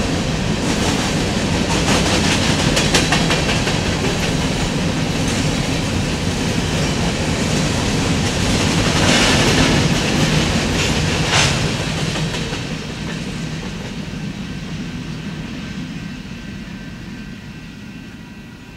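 Empty covered grain hopper cars of a freight train rolling past, wheels clattering over the rail joints with a few sharp clacks. The sound fades away over the last several seconds as the end of the train passes.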